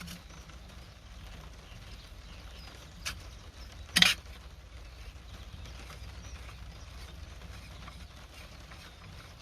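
A single suppressed .22LR rifle shot about four seconds in: a short, sharp crack from a JW15 bolt-action rifle with a custom monocore suppressor in a carbon-fibre tube, fired for the first time. A fainter click comes about a second before it.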